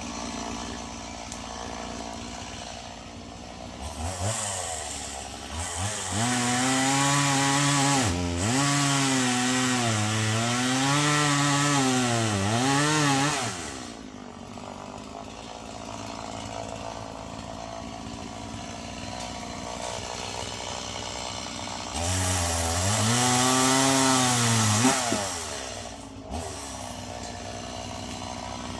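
Stihl two-stroke chainsaw bucking dead ash logs. It idles, then revs up and cuts for about eight seconds, its engine note dipping and recovering under load. It drops back to idle and makes a second, shorter cut of about four seconds, then idles again.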